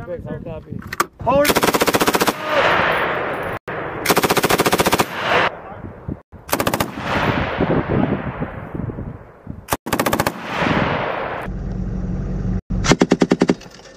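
M249 light machine gun firing short bursts of automatic fire, about six bursts, each followed by a fading echo. Near the end a burst of about eight rapid shots from the vehicle-mounted M240B machine gun comes over a low steady engine hum.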